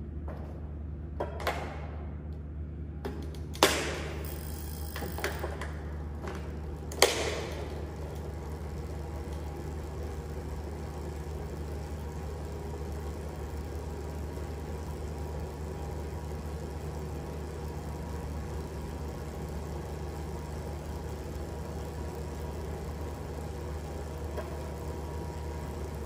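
A ThinkRider X5 direct-drive smart trainer and the bike's chain and cassette whirring steadily as a rider pedals at about 30 km/h, measured at roughly 55 dB from 1 m. In the first few seconds the rider mounts, with a few clicks and knocks and two sharp snaps a few seconds apart as the shoes clip into the pedals.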